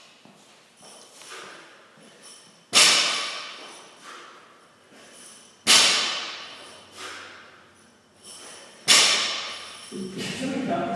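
A 95-lb barbell with bumper plates hitting the rubber gym floor three times, about three seconds apart. Each landing is a loud thud that rings away, with smaller knocks from the bar and plates between the landings.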